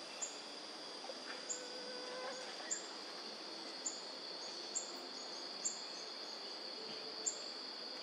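Forest ambience: a steady high insect drone with short, very high bird chirps repeated roughly once a second, and faint whistled notes of a more distant bird in the first few seconds.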